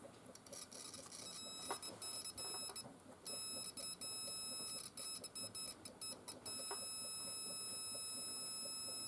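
High-pitched electronic buzzer tone, cutting in and out in a fast stutter for several seconds, then held steadily from near the two-thirds point.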